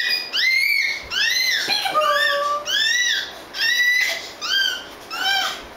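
Two babies squealing: a run of about ten short, high-pitched calls, each rising and then falling in pitch, sometimes two voices overlapping.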